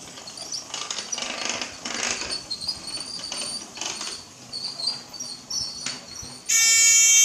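Toy train running along its plastic track with a light mechanical clatter of motor and wheels, then about six and a half seconds in the project's electronic buzzer sounds one loud, steady beep lasting about a second, its audible notice.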